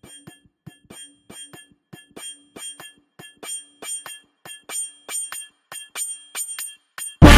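A rapid series of short, bright bell-like dings, about three or four a second, over a faint low hum; they grow louder toward the middle and then thin out. Loud music cuts in right at the end.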